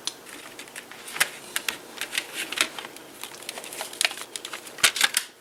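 A plastic CD case and its paper insert being handled: irregular light clicks and taps, with a quick cluster of louder clicks near the end.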